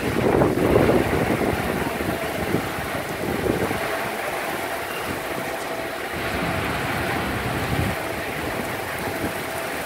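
Storm wind blowing across an open ship's deck and buffeting the microphone, with water sloshing in the swimming pool. There is a louder surge in the first second.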